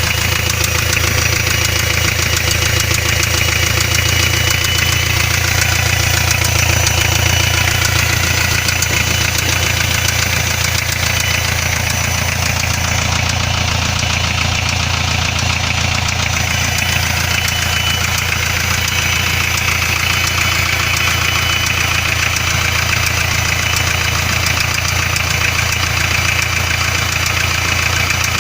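Hyundai Starex 2.5 turbodiesel four-cylinder engine running steadily with a knock inside it, a knock that the owner blames on the failed turbocharger.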